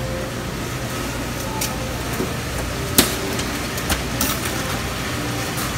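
Steady supermarket background hum of refrigeration and ventilation, broken by a few sharp clicks, the loudest about three seconds in.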